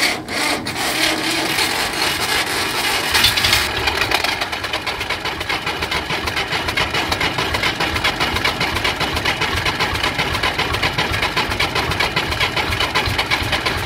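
Fiat 480 tractor's three-cylinder diesel engine on a cold start after long standing: it catches and runs ragged with a loud hiss for about the first four seconds, then settles into a steady idle with even exhaust beats.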